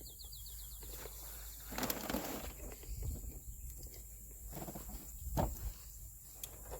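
Faint scattered handling noises: a quick run of small ticks at the start, then rustles and clicks, with one sharper click about five and a half seconds in.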